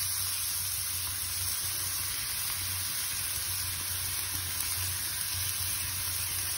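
Chopped onions sizzling steadily in hot oil in a nonstick frying pan as they are tipped in to fry.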